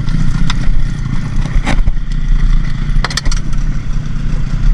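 Boat engine running steadily with a low rumble, with a few sharp clicks and knocks about a second and a half in and again around three seconds.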